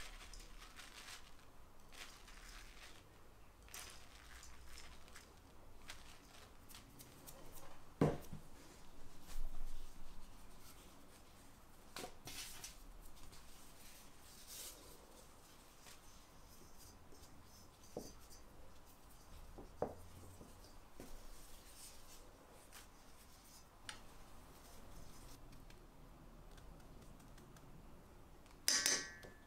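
Faint, sparse rustles and light knocks of hands working hand-rolled phyllo pastry in a metal baklava tray: ground nuts sprinkled over the buttered sheets, a thin sheet laid on, melted butter brushed over it. A short clink near the end.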